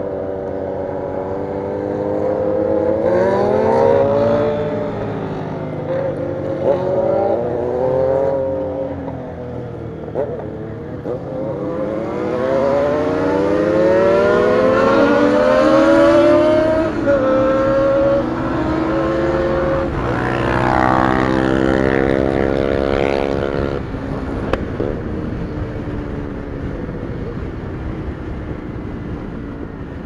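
Motorcycle engine under way, heard from the rider's seat: the revs climb and drop again and again as it accelerates and shifts gears. There is a short climb a few seconds in, a long climb from about twelve to seventeen seconds, and another around twenty to twenty-three seconds. It settles to a steadier, lower note near the end.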